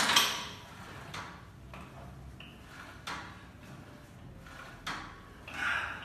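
Cable machine's weight stack and pulley sliding and clanking in about five short bursts, with each rep of a reverse-grip triceps pushdown.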